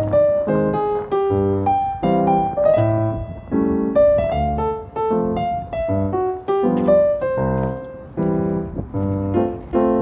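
Background piano music: a steady run of single notes and chords, each struck and then fading.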